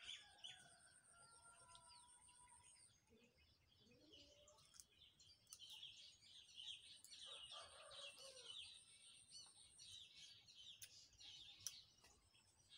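Faint birds chirping, with many short high chirps over a steady high-pitched insect trill that comes and goes. A lower, louder bird call sounds about seven to eight seconds in, and a few sharp ticks fall near the end.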